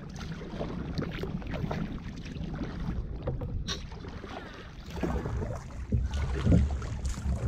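Headwind rumbling on the microphone, with water splashing and dripping from kayak paddle strokes.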